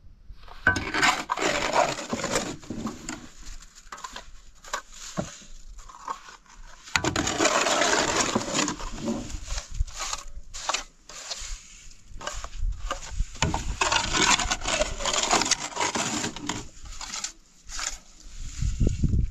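Irregular scraping, rubbing and knocking in uneven bursts, with many sharp clicks: hand work with hard materials.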